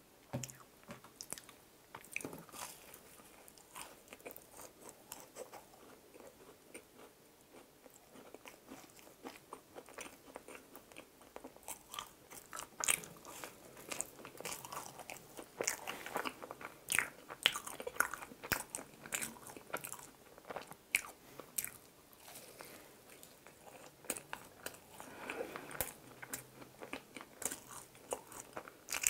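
Close-miked eating of a chocolate-topped Krispy Kreme waffle donut: bites and chewing with soft crunches and wet mouth sounds. The crunching grows busier and louder about halfway through.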